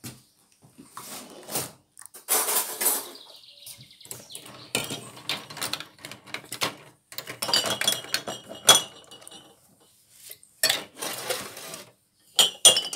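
Glass jars, a plastic funnel and a pot clinking and knocking on a tray as jars are filled with hot elderberry jelly, with a few short spells of pouring liquid and a glassy ring.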